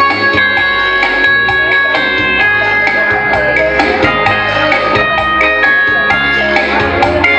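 Electronic keyboard playing an upbeat song over a built-in drum beat, with held chords and a steady rhythm.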